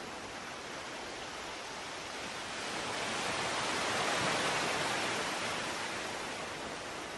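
Steady rushing noise, swelling louder about three seconds in and easing off again near the end.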